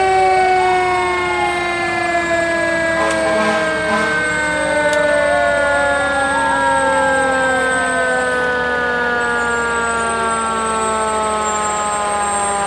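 Fire truck sirens. One siren holds a long tone that slowly falls in pitch. Over it, for most of the time, a second siren wails up and down.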